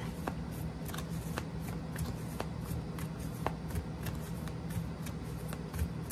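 A deck of tarot cards being shuffled by hand, cards sliding and tapping together in quick, irregular clicks.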